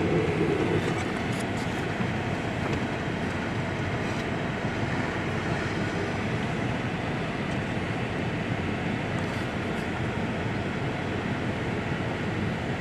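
Steady vehicle rumble with an even hiss: a truck engine idling, heard from inside the cab.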